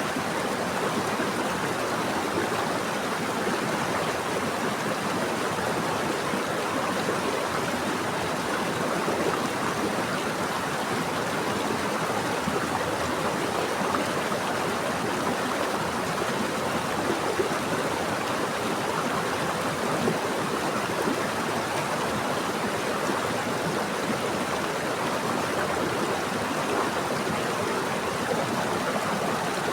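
Running water of a stream flowing steadily, an even rushing and gurgling with no change.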